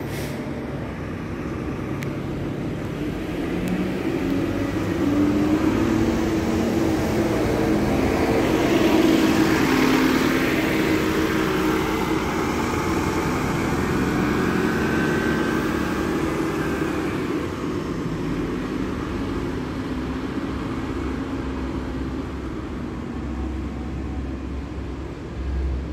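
KMB double-decker bus (fleet E6M71) pulling away from a stand and accelerating, its diesel engine working under load. The engine grows loudest about nine to ten seconds in as the bus moves off, then runs on at a steadier, somewhat lower level as it drives away.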